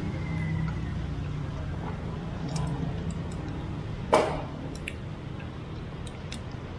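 Tableware at a meal: one sharp knock about four seconds in and a few light clicks, over a steady low hum.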